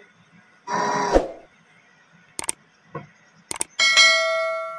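A subscribe-button sound effect: two mouse clicks, then a bell ding that rings and slowly fades. Before it, about a second in, a small DC water pump run from the repaired 12 V battery charger buzzes briefly.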